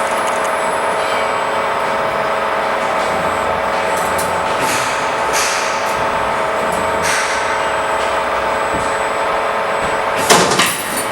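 Wire bending machine running with a steady hum, cut by a few short hissing bursts and a louder burst of noise near the end.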